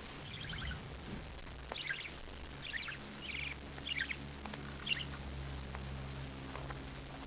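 A bird chirping in short clusters of quick notes, about one cluster a second, over a steady low hum.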